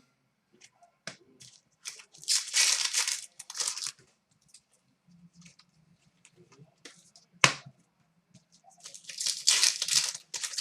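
Hockey card pack wrappers being torn open and crinkled by hand: two stretches of ripping and rustling a few seconds apart, with a single sharp tap between them.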